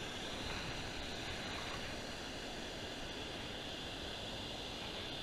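Steady rush of river water pouring over a small waterfall and rock ledges.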